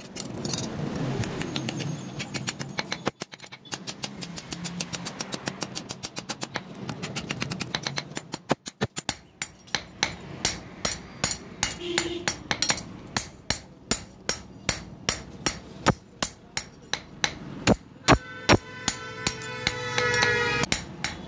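Hand hammer striking a sickle blade on a steel anvil block: hand-forging the blade with repeated sharp metal-on-metal blows, settling into a steady rhythm of about two strikes a second.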